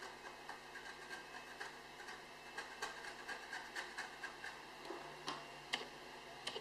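X-Acto knife blade scraping solder mask off a small circuit board's copper trace: faint, irregular light scratches and ticks, several a second.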